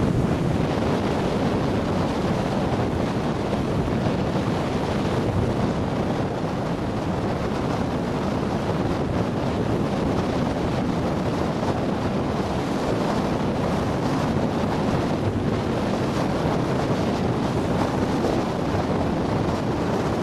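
Wind buffeting the microphone: a steady, loud rushing with a heavy low rumble.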